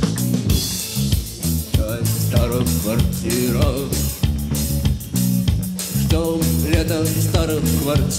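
Rock band instrumental backing: drum kit and guitars playing a steady beat, with the lead guitar part taken out for play-along.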